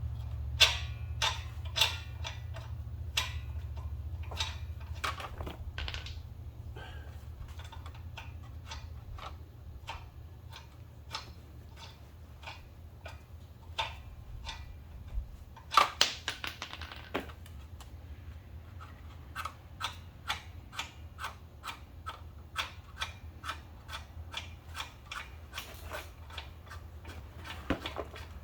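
Irregular metallic clicks and knocks of a hand wrench working the lug nuts to take a car's front wheel off, over a steady low hum.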